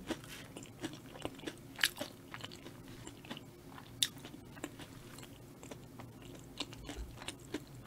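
Close-miked chewing of crunchy battered fried food (Korean twigim), a run of sharp crackling crunches. The loudest crunches come about two and four seconds in.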